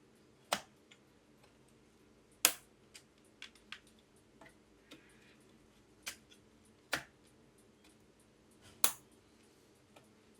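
Sharp plastic clicks, about five louder ones and several faint ticks at irregular intervals, as RAM sticks are pressed into motherboard memory slots and the slot latches snap shut.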